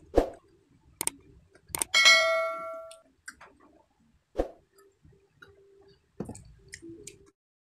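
Subscribe-button animation sound effect: a couple of sharp clicks, then a bright bell ding about two seconds in that rings out and fades over about a second. A few short knocks come from a drinking glass being handled on the wooden table.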